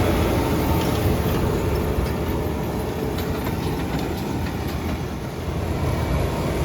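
Fendt tractor and Massey Ferguson RB156 round baler running in the hayfield: a steady low mechanical rumble with light, irregular clicking and rattling.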